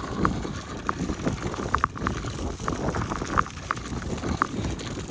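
Blizzard wind buffeting the microphone in a steady low roar, with short squeaky crunches every half second or so.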